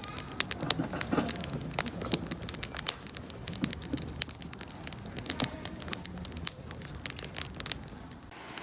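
Wood campfire crackling, with frequent sharp pops and snaps over a low rumble of the flames. The crackling stops shortly before the end, where a steady hiss takes over.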